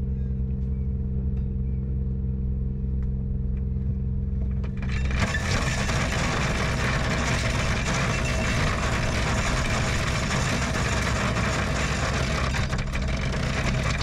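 Anchor chain paying out through a bow windlass: a dense rattle that starts about five seconds in and keeps going. Under it, the boat's diesel engines hum steadily at idle.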